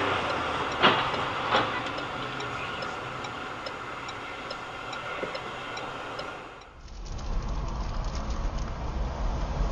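Dashcam cabin audio of a car driving on a wet road: steady tyre hiss with light ticking at about two a second and two sharp clicks about a second in. About seven seconds in, the sound changes abruptly to a lower engine and road rumble inside another car.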